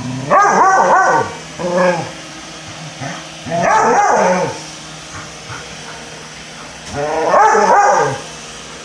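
A dog barking at a Roomba robot vacuum in three drawn-out, wavering barks of about a second each, with a shorter one after the first, over the steady hum of the running Roomba.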